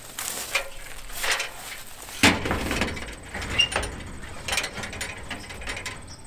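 Feet climbing the rungs of a metal ladder leaned against a barn wall: a string of irregular knocks and creaks, the loudest about two seconds in.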